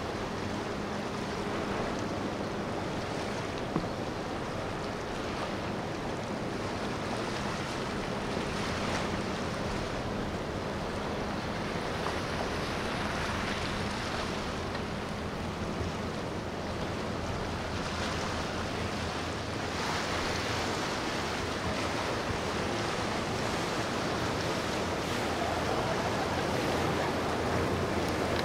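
Steady rush of water from a passing Sea Ray motor yacht's bow wave and wake, with a low steady engine hum underneath. A single brief click about four seconds in.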